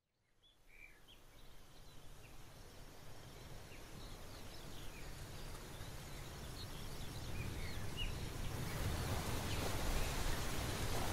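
A steady rushing noise fades in from silence and grows gradually louder, with scattered short bird chirps over it.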